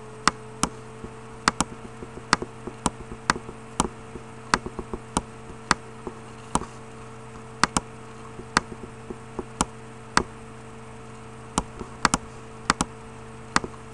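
Computer mouse button clicking: short sharp single clicks at an uneven pace, roughly one or two a second, over a steady low electrical hum.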